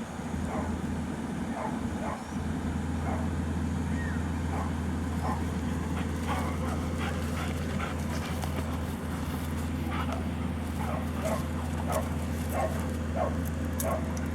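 A dog barking and yelping in short, excited yips, repeated irregularly and coming faster in the second half, with whining in between, over a steady low hum.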